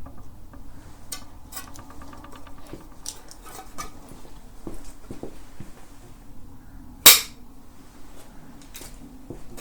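Metal parts and tools being handled on a workbench, with scattered light clinks and taps and one sharp metallic clack about seven seconds in.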